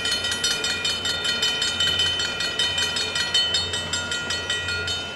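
Railroad grade-crossing bell ringing rapidly, about four strokes a second, as the crossing gates come down. The strokes stop near the end.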